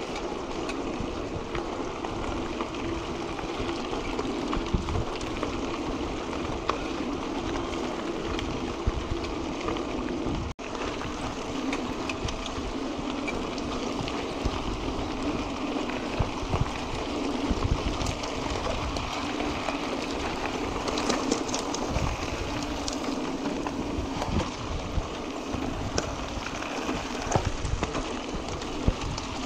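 Mountain bike tyres rolling over a dirt and gravel track: a steady crunching rumble with scattered small clicks and rattles from stones and the bike.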